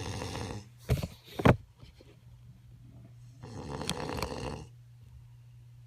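A man snoring: one long snore at the start and another about three and a half seconds in, over a steady low hum. About a second in come two short, sharp sounds, louder than the snores.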